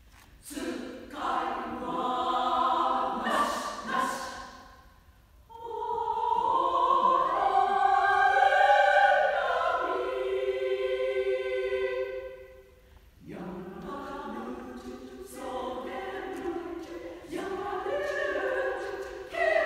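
Women's choir singing, in phrases broken by short pauses about five and thirteen seconds in.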